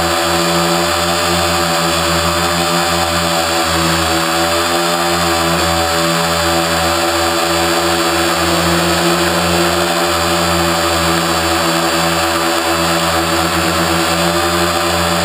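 Quadcopter motors and propellers hovering, heard from the aircraft's own camera: a loud, steady multi-tone hum whose pitch wavers slightly as the motors adjust.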